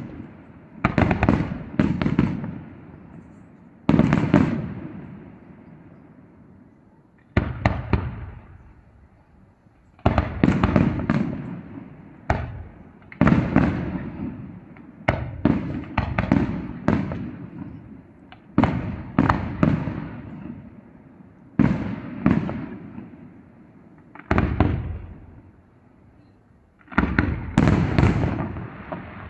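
Aerial firework shells bursting: sharp bangs with echoing tails, coming in clusters of several quick bursts separated by lulls of a few seconds, with a dense run of bursts near the end.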